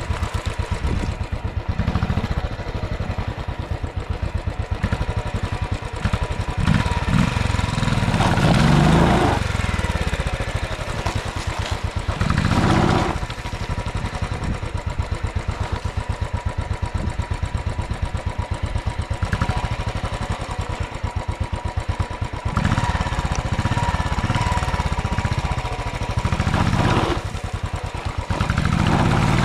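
Royal Enfield single-cylinder motorcycle engine running at low speed off-road, its revs rising in brief surges about four times as the rider works the throttle over rough, loose ground.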